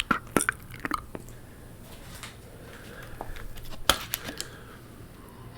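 Close-miked wet mouth sounds: sharp tongue and lip clicks and pops, a quick cluster in the first second and one loud pop about four seconds in, with softer wet smacking between.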